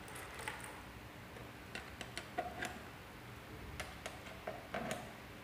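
Scattered light clicks and taps of banana-plug patch cords being handled and pushed into the sockets of an op-amp trainer panel, with a few small squeaks among them.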